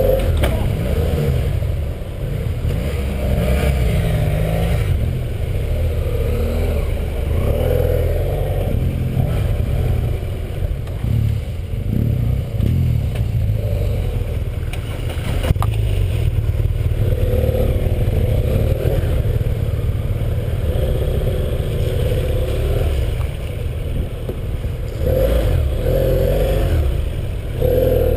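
BMW 800 cc parallel-twin dual-sport motorcycle engine running as the bike is ridden over a rough, muddy dirt track, the engine note rising and falling with the throttle. A single sharp knock about halfway through.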